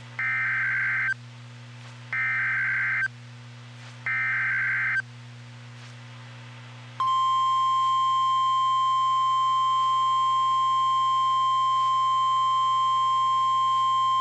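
NOAA Weather Radio Emergency Alert System signal. Three one-second bursts of warbling SAME digital header data, each followed by a second's pause, announce a new alert, here a tornado warning. About halfway through, the steady 1050 Hz weather-radio warning alarm tone starts and holds.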